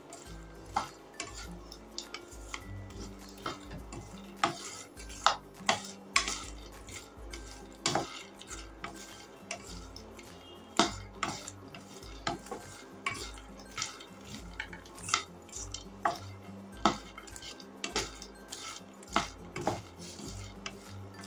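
A slotted spatula stirring makhana (fox nuts) being roasted in a nonstick pan: light scraping with sharp, irregular clicks and knocks about once a second as the spatula hits the pan and the seeds tumble. The seeds are being roasted until crunchy.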